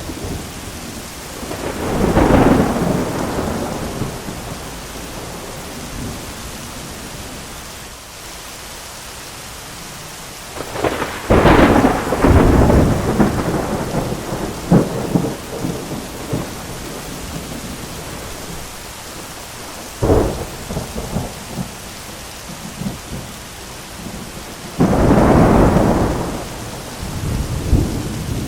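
Thunderstorm: steady heavy rain with repeated thunder. A rumble swells about two seconds in, a sharp crackling strike near the middle rolls on for several seconds, another crack comes about two-thirds through, and a loud rumble swells near the end.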